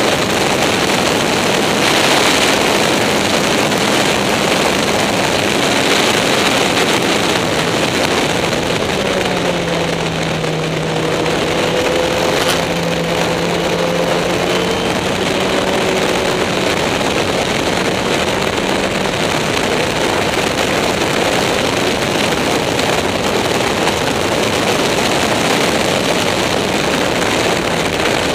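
Caterham SP/300.R race car at speed on track, heard onboard from the open cockpit: a loud, steady rush of engine and wind noise. A fainter engine note stands out for several seconds near the middle.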